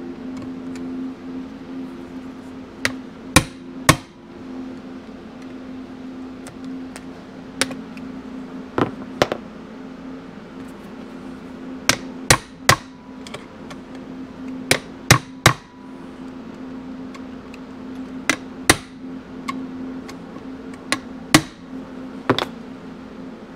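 Hammer blows on a driver set in the aluminium crankcase screws of a 1972 Yamaha 250 MX engine, seating the screws. The blows come as sharp strikes in groups of two or three, a few seconds apart.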